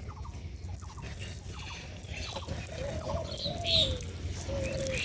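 Birds calling: a wavering, sliding call in the second half and a few short high chirps, over a steady low rumble.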